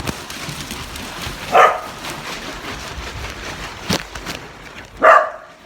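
Pet dog barking: single sharp barks about a second and a half in, then twice in quick succession near the end, over a steady background noise.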